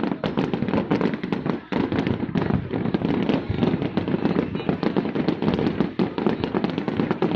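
Aerial fireworks shells bursting and crackling in a continuous barrage, many reports a second.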